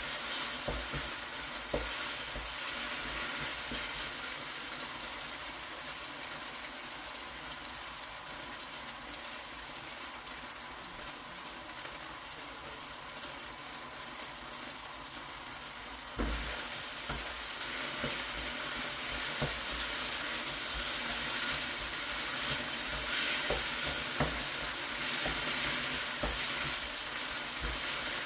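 Chicken strips sizzling in hot sesame oil in a wok on high heat, with scattered taps and scrapes of a utensil as they are stir-fried. The sizzle gets suddenly louder a little over halfway through and stays louder.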